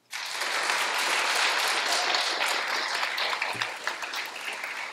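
Audience applauding, many hands clapping at once; it starts suddenly and eases off slightly over the last couple of seconds.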